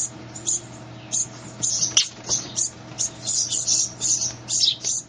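A bird giving a series of short, high squeaky calls, two or three a second, coming thicker after about a second and a half, over a faint steady hum.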